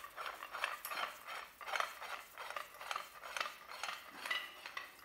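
Threaded galvanised steel pipe being spun by hand into the threaded head of a Bessey pipe clamp: a quick run of light metal-on-metal scrapes and clinks as the threads turn, a few a second.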